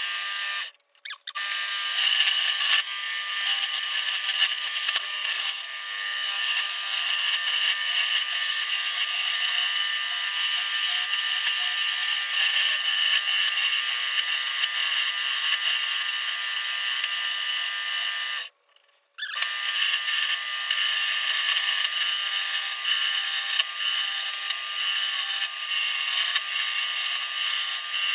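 Wood lathe spinning a glued-up 2x4 blank while a turning tool cuts into it: a steady motor hum under a continuous scraping, shaving noise that rises and falls as the tool bites. The sound cuts out abruptly for about half a second twice, about a second in and about eighteen seconds in.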